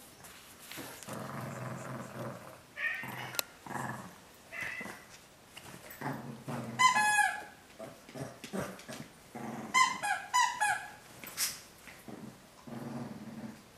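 Small dog growling in low rumbles over a toy, broken by short high yips in two clusters, about seven and ten seconds in.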